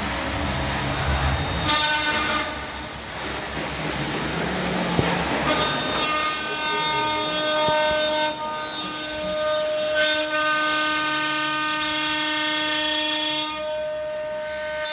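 Emmegi Comet CNC machining centre's spindle running at high speed as it mills an aluminium profile: a high-pitched whine made of several steady tones. It sounds briefly near two seconds in, then holds from about five and a half seconds, breaking off shortly a couple of times and dropping away near the end.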